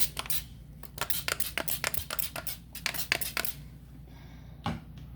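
Hand trigger spray bottle squirting a cleaning rinse in quick repeated bursts, several a second, for the first three and a half seconds. A single knock follows near the end.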